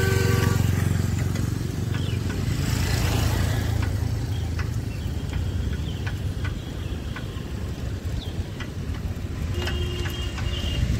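Steady low rumble of road traffic. A short tonal sound comes right at the start, and another brief pair of tones comes near the end.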